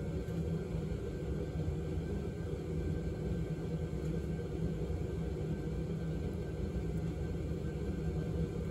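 Steady low rumble with a faint hum, unchanging throughout, with no distinct knocks or clicks.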